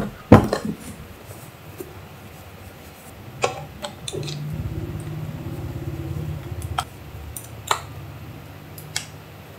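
Two sharp snaps as the latches of a hard plastic equipment case are flipped open, then scattered clicks and knocks as a handheld 3D scanner and its parts are lifted out of the case's foam insert. A low steady hum swells about four seconds in and eases off a few seconds later.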